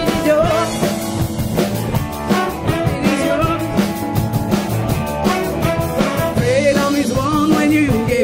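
Live soul band playing: a horn section of trombone and saxophones over drum kit, with female vocals.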